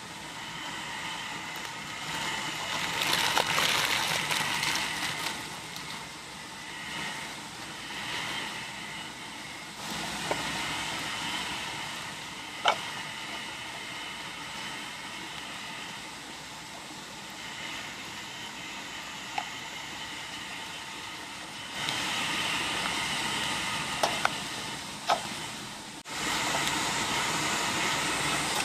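Fire crackling, with a few sharp pops over a steady hiss; the hiss jumps in level abruptly several times.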